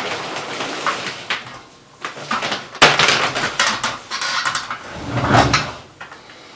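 Vacuum cleaner parts being handled: an irregular run of clicks, knocks and clatter, loudest about three seconds in.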